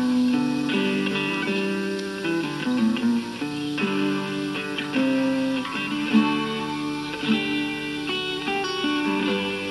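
Instrumental guitar music: plucked and strummed guitar notes in a steady flow, with no singing.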